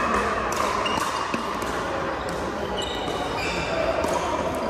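Pickleball paddles striking a hard plastic ball during a rally, several sharp hollow pocks echoing in a large gym. A few short high squeaks, typical of court shoes on a hardwood floor, come about three seconds in.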